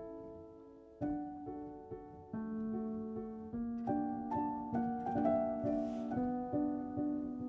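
Instrumental background music: a melody of steady notes that change about every half second.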